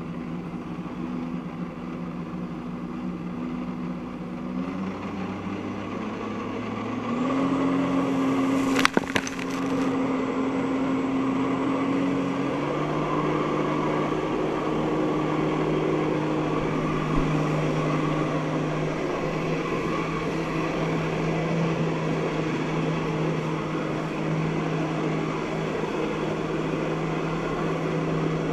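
Jet ski engine running hard to drive a flyboard through its hose. Its steady pitch steps up three times as the throttle is opened, over the rush of water spray. There is one sharp click about nine seconds in.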